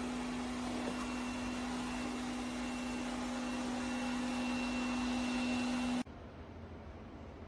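Eureka E20 Plus robot vacuum running: a steady whir with a constant low hum and a faint high whine, which cuts off abruptly about six seconds in.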